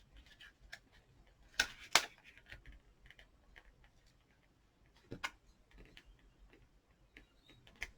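Quiet scattered clicks and taps of card stock being handled and pressed down on a craft table, with two sharper taps close together about a second and a half in and another about five seconds in.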